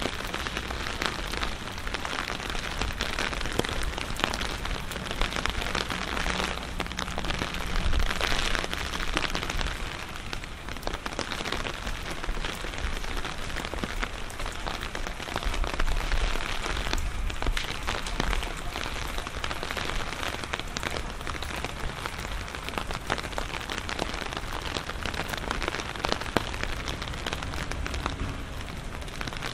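Steady rain falling: a dense, even patter of drops.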